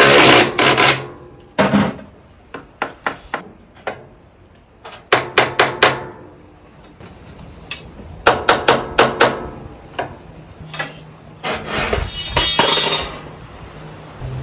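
Hammer blows during brush replacement on a kelp-washing machine: runs of four or five quick strikes with pauses between, the loudest near the start and near the end.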